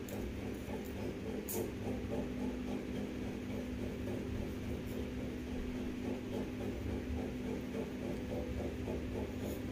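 Kitchen knife cutting through a fleshy aloe vera leaf, with faint crisp cuts and scrapes and two brief sharp clicks, over a steady low hum.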